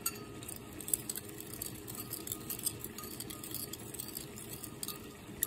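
Plastic spoon stirring fish sauce and sugar in a ceramic bowl, with many light clicks and taps of the spoon against the bowl as the sugar is dissolved.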